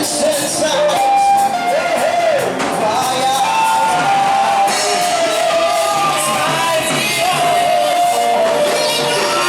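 Gospel worship music: voices singing long held, sliding notes over the band, with occasional shouts.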